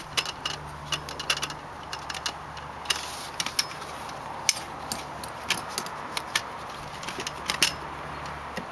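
Irregular clicks and light metallic jingling of strap buckles and snap-hook clips as nylon webbing straps are threaded and pulled through, over a faint steady low hum.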